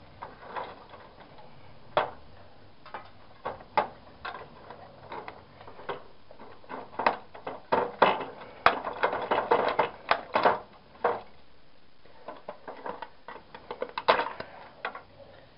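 Irregular clicks, knocks and clatter of hard parts from a dismantled TV being handled and dropped onto sorting piles, busiest in a long stretch of rapid clatter in the middle and again near the end.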